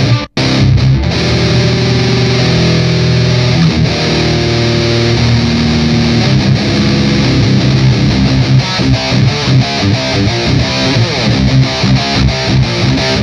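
Electric guitar played through an Electro-Harmonix Nano Metal Muff distortion pedal into a Mooer Radar cabinet simulator, heavily distorted. It starts with held chords, then switches to a fast riff of quick repeated notes over the last few seconds, with a brief dead-silent gap right near the start.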